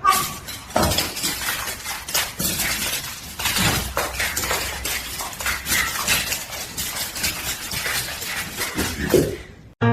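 Continuous clattering and clinking of hard objects, with many irregular sharp knocks.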